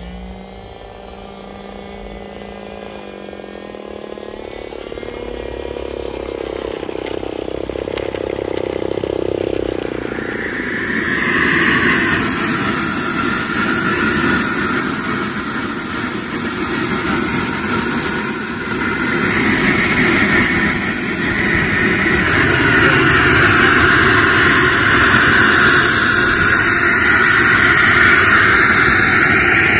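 Small model jet turbine spooling up. A rushing sound builds over the first ten seconds. Then a loud run with a thin, high, steady whine sets in, rising briefly in pitch near the end.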